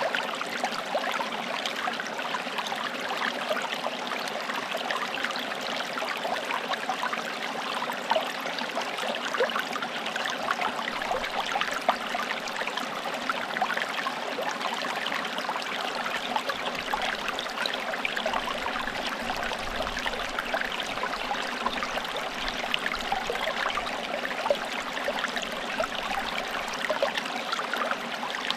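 Forest stream: water running and trickling over stones, a steady rush sprinkled with small splashes and gurgles.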